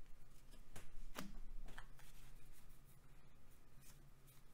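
Trading cards handled and slid against each other while being sorted by hand, with a few light clicks and taps about one to two seconds in. A faint steady low hum runs underneath.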